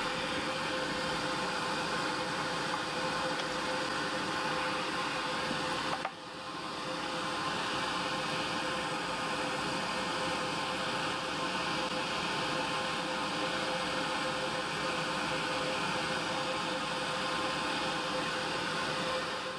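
Steady drone of a workshop machine running: a constant hum with a few held tones over an even rushing noise. About six seconds in it drops briefly, then builds back up to the same steady level.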